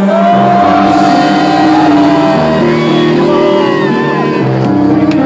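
Electronic dance music from a DJ set, playing loud: sustained synth chords that change step by step under a long held lead note that bends slightly.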